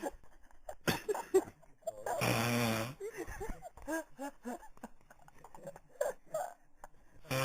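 A sleeping man snoring: one loud snore lasting under a second about two seconds in, and another starting right at the end, with short quieter sounds between them.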